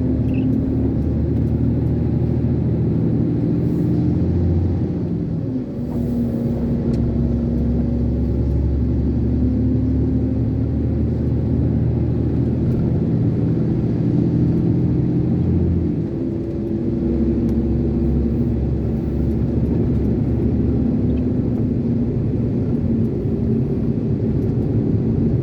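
Diesel engine of an Iveco concrete mixer lorry heard from inside the cab, pulling steadily under throttle with a low rumble. Its note drops and picks up again twice, about six and sixteen seconds in.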